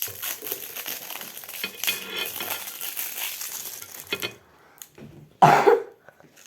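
Plastic packaging and stickers being handled, a steady crinkling and rustling for about four seconds, then a brief louder sound near the end.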